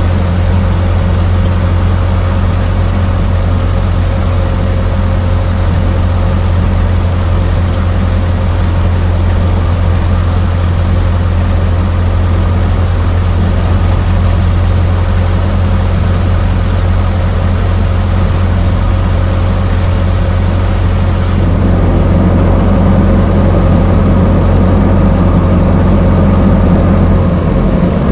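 Old car engine idling steadily with a low, even note. About 21 seconds in, the sound changes and gets slightly louder, and the low note shifts just before the end.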